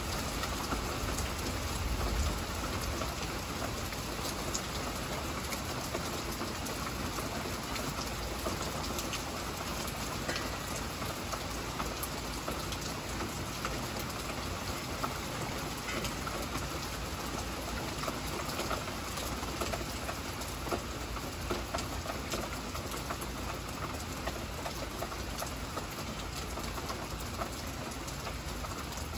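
Heavy rain falling steadily, with a low thunder rumble in the first couple of seconds.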